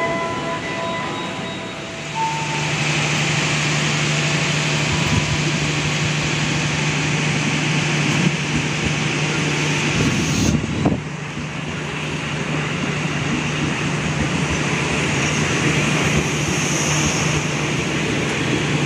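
KRL electric commuter train running past a station platform: steady rolling noise of wheels on rail with a steady low hum, and a short knock about ten seconds in.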